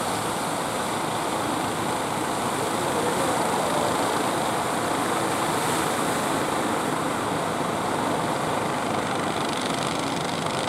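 Engines of wooden outrigger fishing boats running hard as the boats push through the surf at a river mouth, a steady noisy drone that holds level throughout.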